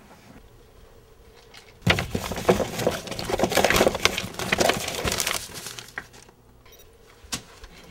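Papers rustling and crinkling as a stack drops into a wire-mesh in-tray. The dense crackle starts suddenly about two seconds in and dies away after about four seconds, with a single sharp click near the end.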